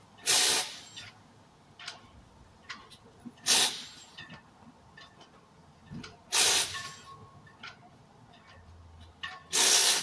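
Compressed air hissing from a gas-station air pump hose, in four short bursts about three seconds apart, with faint ticks between them.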